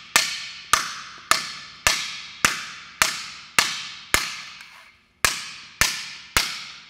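An axe striking a wheel-lock security plate in a durability test: about eleven sharp blows, roughly two a second, each with a short ring, with one longer pause a little after four seconds in.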